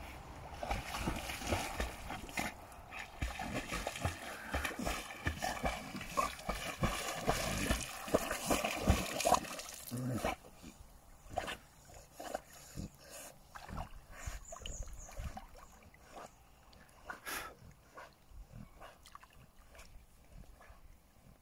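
Rottweiler thrashing and splashing in muddy pond water for about the first ten seconds, then swimming on more quietly with only occasional splashes.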